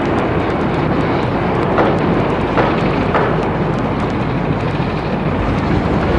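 Harbour ambience laid over the silent film: a steady, deep noise of working machinery and traffic, with a few faint knocks about two and three seconds in.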